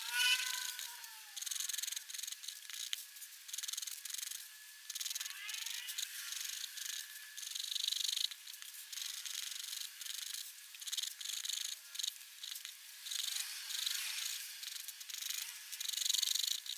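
Pigment pen nib scratching and rubbing across paper in uneven strokes, with a few short squeaky rising-and-falling tones near the start, about a third of the way in and again later.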